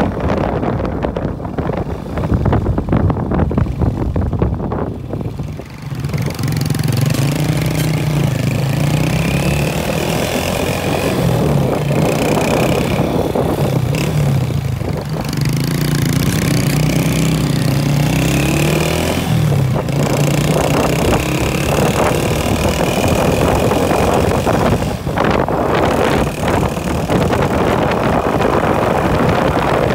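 Motorcycle engine running under way, its pitch rising and falling with the throttle, mixed with wind rushing over the microphone. The first few seconds are mostly wind buffeting, and the engine note comes through clearly from about six seconds in until about two-thirds of the way through.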